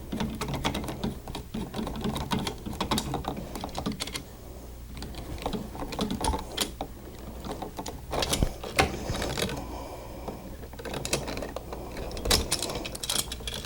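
Irregular small clicks, taps and scrapes of hand tools against wire and a plastic wall switch as a ground wire is fastened to a new Decora switch.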